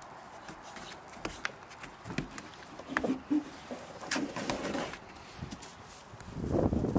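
Goat kids' small hooves tapping and scrabbling on a rubber-covered wooden playhouse roof: scattered sharp clicks, with a louder scuffle near the end.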